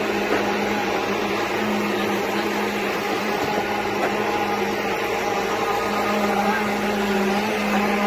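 Concrete pump running steadily, a continuous mechanical drone with a constant low hum, as it pumps concrete through the delivery line.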